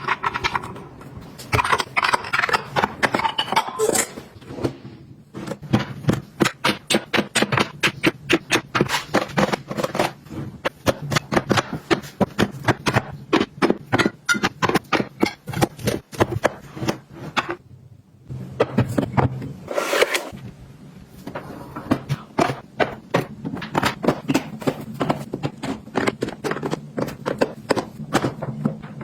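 Household objects being handled: long runs of quick clicks and taps, several a second, with scraping near the start and again about two-thirds of the way in.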